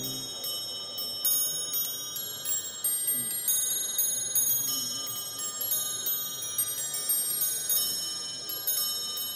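Small clock bells chiming a tune: many high notes struck one after another at an uneven pace, each ringing on over the next, as a musical bracket clock plays.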